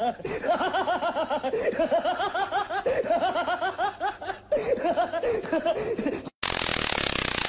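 High-pitched laughter in quick repeated bursts, several a second, that stops abruptly about six seconds in. A loud, dense noise takes over near the end.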